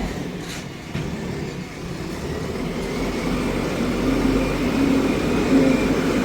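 JCB backhoe loader's diesel engine running, rising in level and revving up about halfway through.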